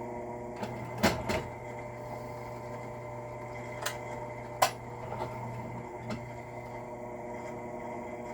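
Drill press motor running steadily, spinning a quad-pin roll crimp tool against a shotgun shell hull, with a few sharp clicks about one second in and again near four and four and a half seconds.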